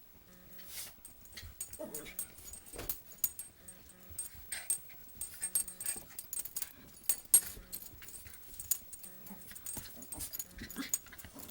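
Dogs play-wrestling: brief whines and yips among a busy patter of scuffling and clicking taps.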